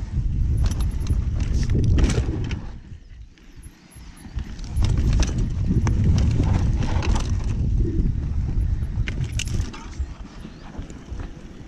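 Mountain bike riding down a loose, rocky trail: tyres crunching over stones and the bike clattering with irregular sharp knocks, over a heavy rumble of wind on the microphone. The noise drops off briefly about three seconds in, then picks up again.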